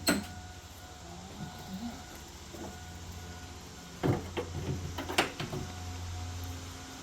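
Metal clunks and rattles as the hood of a 2000 Chevy Blazer is worked open without a working hood release: one knock at the start, then a flurry of clatters about four to five and a half seconds in.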